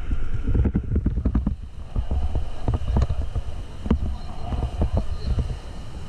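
Whitewater rapids rushing and splashing against an inflatable raft, with wind buffeting the microphone as a heavy low rumble. Irregular splashes and knocks are heard as the paddlers stroke through the waves.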